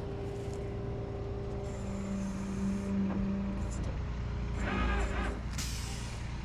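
Vehicle engine idling, a steady low hum with a held tone over it. A short louder sound comes about four and a half seconds in, followed by a brief hiss.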